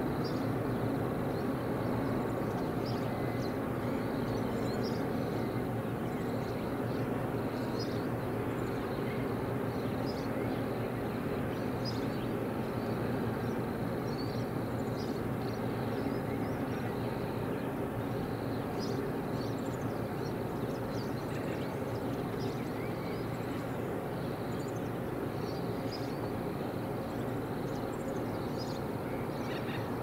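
EMD diesel-electric locomotive engines running steadily with a low, even rumble that slowly grows a little fainter. Small birds chirp over it.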